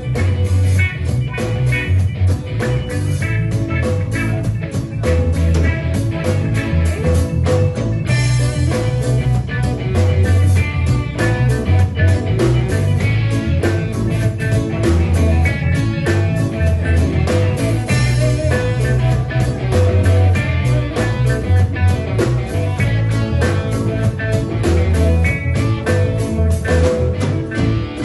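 Band music with electric guitar, bass and drums playing a steady rhythm.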